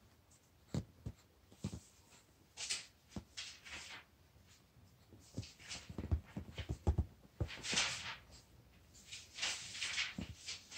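Lhasa Apso puppy scrabbling and digging in a fleece-lined dog bed while playing with a fabric toy: irregular scratching and rustling with soft low thumps.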